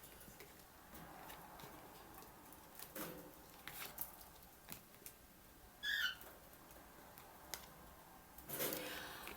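Faint clicks and rustling of tarot cards being handled and laid out, with a short high chirp about six seconds in.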